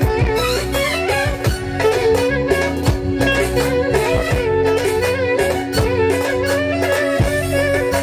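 Lively folk music led by a clarinet melody, over a steady beat and a bass line.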